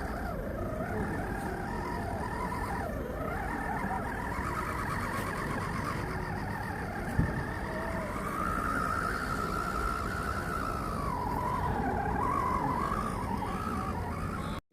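Electric motor and gearbox of an RC crawler truck whining as it drives, the pitch rising and falling with the throttle, with a single knock about seven seconds in.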